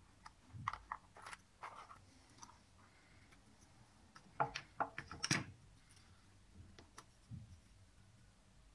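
Small clicks and scrapes of a wooden shim and a socket's metal mounting frame being worked into a flush-mounted wall box in the plaster, with a quick cluster of louder clicks about halfway through.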